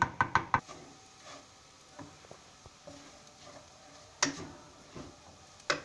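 A spiral wire whisk clicks rapidly against a ceramic bowl for about half a second, beating an egg and milk mixture. Then it is mostly quiet with faint light ticks, broken by two sharp knocks near the end, from a wooden spoon striking a metal karahi while stirring.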